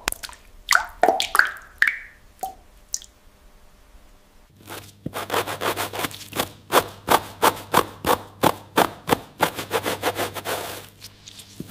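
A few water drops plopping onto a cheese wheel. About four seconds in, a stiff bristle brush starts scrubbing the rind of an aged cheese wheel in quick strokes, two to three a second, brushing away unwanted mould.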